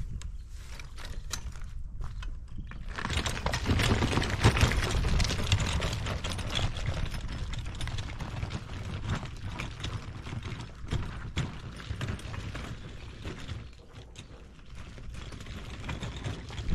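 Collapsible camping wagon pulled over a dirt and gravel path: its wheels and frame crunch and rattle steadily, mixed with footsteps. The rolling starts about three seconds in, after a few light clicks as the handle is taken up.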